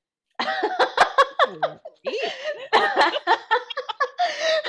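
A woman laughing in repeated bursts, starting about half a second in.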